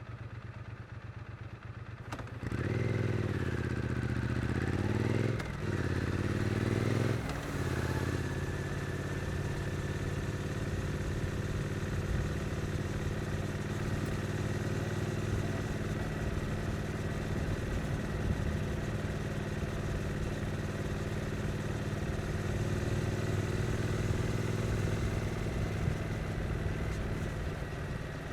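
2022 Triumph Street Twin's 900 cc parallel-twin engine: running low for about two seconds, then pulling hard with the pitch climbing and dropping sharply twice as it goes up through the gears, then settling into a steady cruising note.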